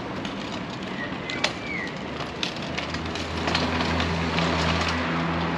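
Vehicle engine running, with a low drone that builds about halfway through over a constant light rattling of clicks, and a brief chirp about a second and a half in.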